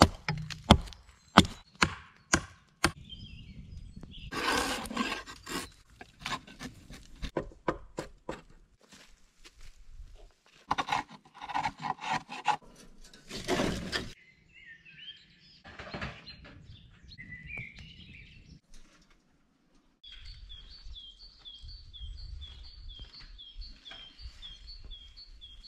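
A Fiskars axe chopping into a log with a run of sharp strikes over the first few seconds, then scrapes and knocks of wood being worked by hand. Birds chirp in the woods, one repeating a quick two-note call many times near the end.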